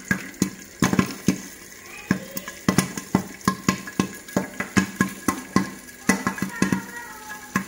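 Corn kernels popping in hot oil and sugar inside a pan covered with a glass lid: many sharp, unevenly spaced pops a second over a faint sizzle of frying.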